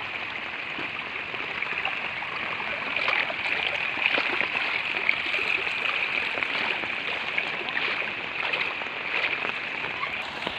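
Fast muddy floodwater rushing over a submerged field, a steady rushing and gurgling of the current.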